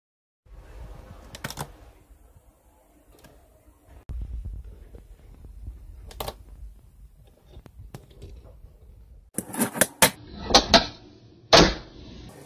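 A fingerboard rolling on a wooden desk top, its small wheels making a low rumble, with occasional sharp clacks of the board hitting the wood. Near the end comes a run of loud clacks as the board pops and lands several times.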